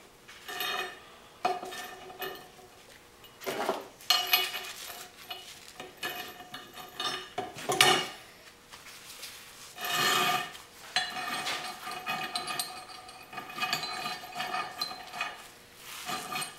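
Steel parts knocking and scraping on a steel plate and bench top: a nut and pliers clink against the plate several times with a ringing metallic tone, then a longer stretch of scraping and rubbing of metal on metal toward the end.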